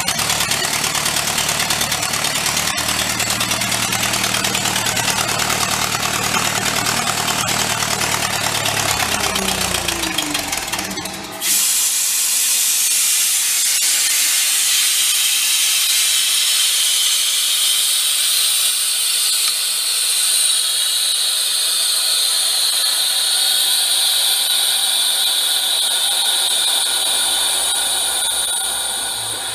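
Vintage air compressor running: its gasoline engine drones steadily, its pitch sagging about ten seconds in. Then an abrupt, loud rush of air hiss with a high whistle takes over and holds steady; it is described as really loud.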